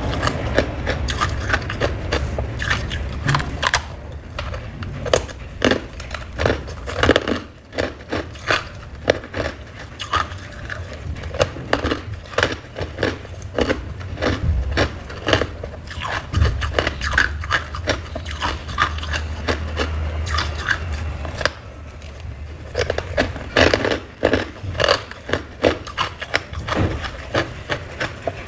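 Humidifier frost being bitten and chewed up close: a dense, irregular run of crisp crunches.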